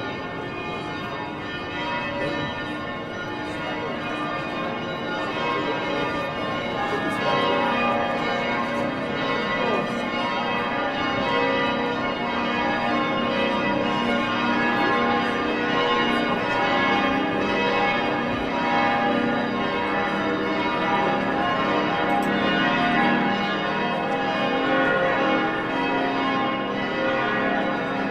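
The full peal of St. Stephen's Cathedral's bells, led by the great Pummerin bell, ringing together in a dense, continuous wash of overlapping tones. It is a mourning toll for the death of a pope. The ringing grows louder over the first several seconds and then holds steady.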